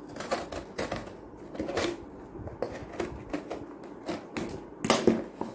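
Hands handling and prying open a watch box: irregular rustles, scrapes and small clicks, with the sharpest knocks near the end.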